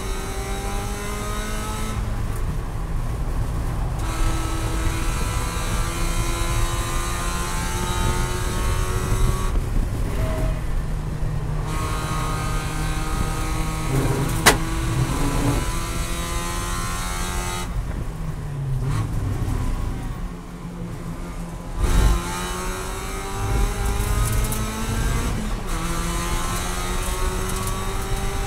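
Spec Miata's four-cylinder race engine at racing speed, rising in pitch through the gears with upshifts, easing off three times for corners. A sharp click comes about halfway through, and a heavy thump near three-quarters of the way.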